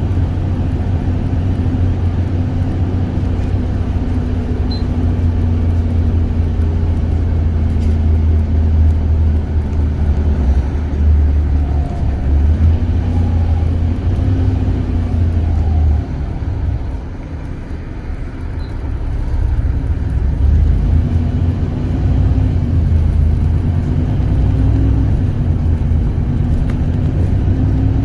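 City bus engine and road noise heard from inside the bus: a loud, low drone whose pitch drifts up and down with speed. It eases off for a couple of seconds past the middle, then builds again.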